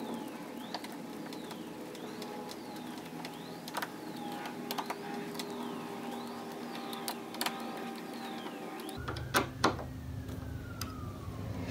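Scattered small metallic clicks and ticks of a hex driver turning M3x8 bolts into a 3D-printed plastic belt tensioner on an aluminium extrusion, over a faint background whir. About nine seconds in, a low hum starts.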